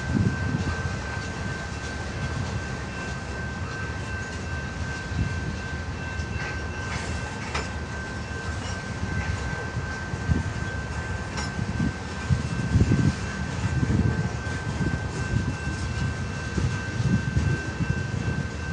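CN freight train rolling past: a steady low rumble of wheels on the rails that swells and eases, with a thin steady high tone above it.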